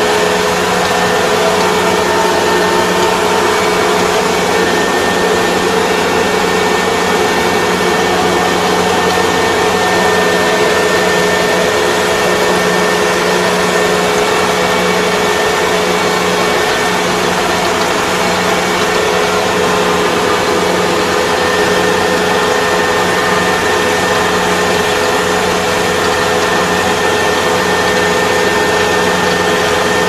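Rice combine harvester running steadily while it cuts standing rice, heard from inside the cab: a constant machine drone from the engine and harvesting mechanism with several steady tones and no change.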